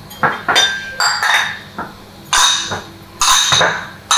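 Small white ceramic bowls clinking against each other as they are stacked: several separate sharp clinks, each with a brief ring.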